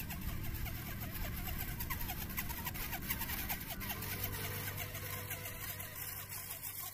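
MN-D90 1:12 RC crawler, fitted with a used 390 brushed motor and a Pangolin gearbox, whirring as it drives over dirt; a steadier hum comes in about four seconds in as it draws closer.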